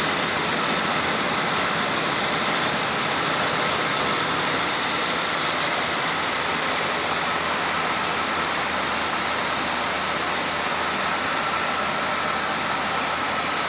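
Garant 4 cigarette-making machine running steadily at top speed: an even mechanical hiss and whir with a faint steady whine above it.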